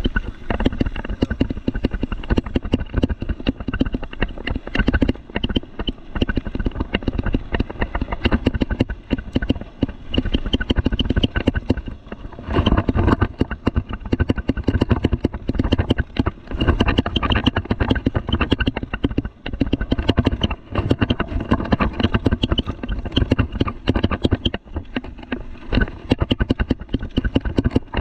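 Mountain bike, a Rocky Mountain Thunderbolt, rattling and clattering over a rough dirt trail while being ridden at speed: a dense, continuous stream of knocks from the frame, drivetrain and tyres on roots and rocks, easing briefly about twelve seconds in.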